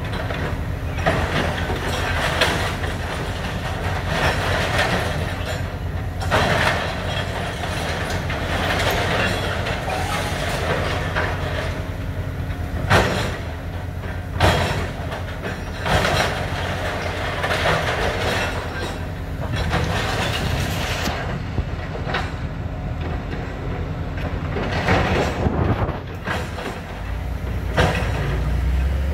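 Hitachi excavator's diesel engine running steadily while its demolition grab crunches and drags scrap metal, with repeated sharp metallic clanks.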